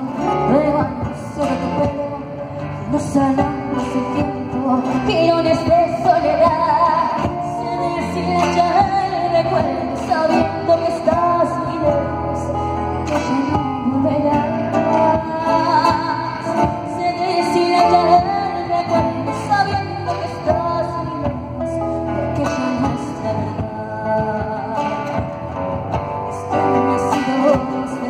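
A woman singing a song with a live band, backed by acoustic guitar and drum.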